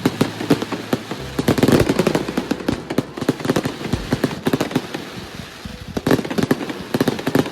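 Fireworks going off: a dense run of rapid bangs and crackles, thickest about two seconds in and again near the end.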